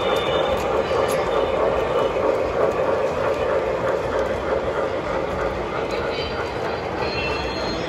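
O-scale MTH Premier model of a PRR Q-2 4-4-6-4 steam locomotive running past with its train on the layout track, a steady rolling running noise.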